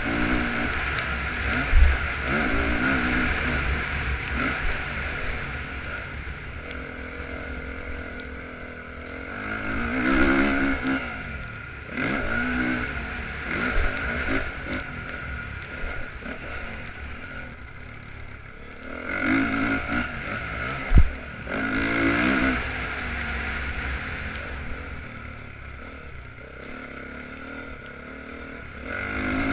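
2015 Honda CRF450R's single-cylinder four-stroke engine being ridden hard, its note rising and falling through repeated bursts of throttle. Two sharp thumps cut through, one near the start and one about two-thirds of the way through.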